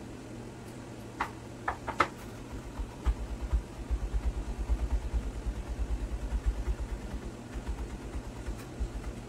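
Kitchen knife chopping on a wooden cutting board: a few sharp taps, then from about three seconds in a fast, even run of dull chopping thuds, several strokes a second.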